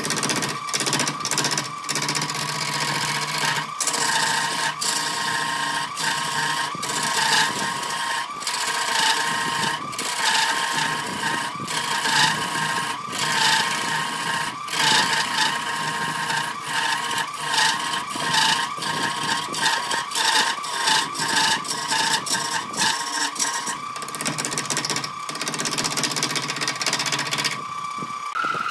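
A wood lathe runs with a steady whine while a hand-held turning tool cuts into a spinning raw log, making rapid, irregular scraping and chattering as chips fly off. Near the end the cutting stops and only the lathe keeps running.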